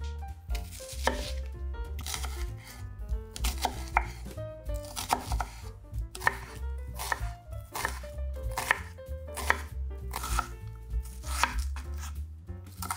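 Kitchen knife slicing and then dicing an onion on a wooden cutting board: a steady run of crisp blade knocks on the board, irregularly spaced at about one to two a second.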